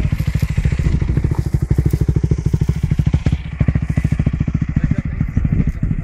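Dirt bike engine running at low revs up close, a fast, even beat of exhaust pulses.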